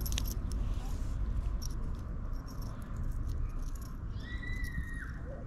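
Light clicks and rattles of a small spinner lure's hook and blade as it is worked out of a small perch's mouth by hand, over a steady low rumble on the microphone. A brief high whistle sounds about four seconds in.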